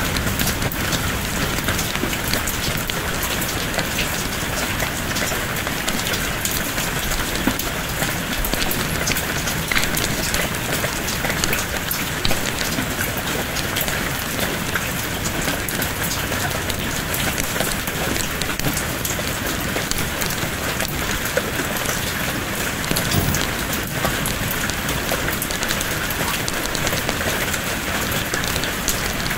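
Steady rain falling: an even hiss scattered with fine ticks of drops on a surface.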